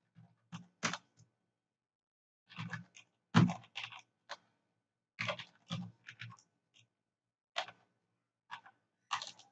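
Computer keyboard typing: short clusters of keystroke clicks with brief pauses between them, the loudest click about three and a half seconds in.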